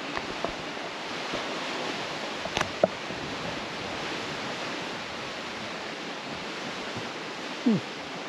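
Steady wash of Lake Superior waves breaking on the shore. A sharp click comes nearly three seconds in, and a short low falling sound comes near the end.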